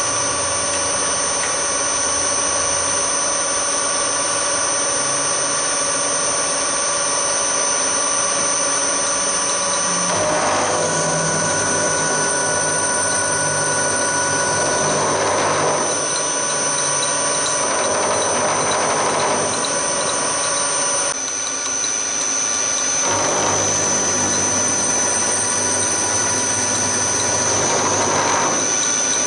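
Hafco HM 54GV milling machine running, its spindle and motor giving a steady high whine as an end mill cuts aluminium. From about ten seconds in, a rougher cutting noise swells and fades several times as the cutter takes metal.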